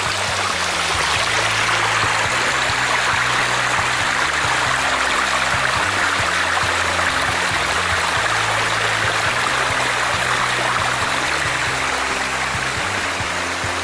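Shallow stream rushing over small rock cascades: a steady, even rush of flowing water, rising slightly about a second in.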